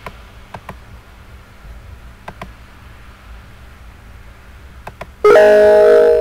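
A few computer mouse clicks, some in quick pairs, then about five seconds in a loud Windows alert chime that rings and fades over about two seconds. The chime signals an error: the cable cannot be connected to that port.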